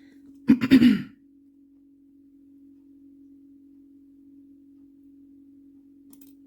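A woman clears her throat once, briefly and loudly, about half a second in, over a steady low hum.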